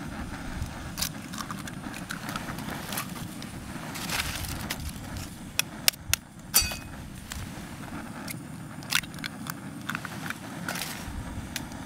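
A raw egg being cracked with a metal spoon: a few sharp taps about halfway through, the last with a brief metallic ring, amid small handling clicks. A steady rushing noise lies underneath.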